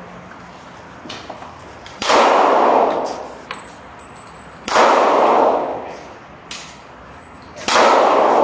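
Three handgun shots, roughly two and a half to three seconds apart, each ringing on for about a second afterwards.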